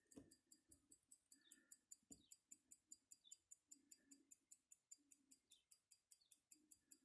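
Longines caliber 19.71N pocket watch movement ticking faintly and evenly, about five ticks a second: the running balance and escapement of a watch in good working order.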